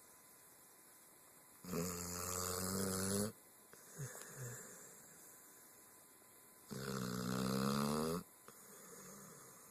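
Snoring: two long, pitched snores about five seconds apart, each lasting about a second and a half, with quieter breathing between them.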